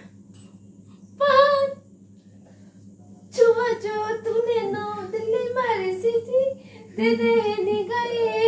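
A woman's high voice: a short cry about a second in, then long, wavering sing-song vocalising from about three seconds in, with a brief break near the end.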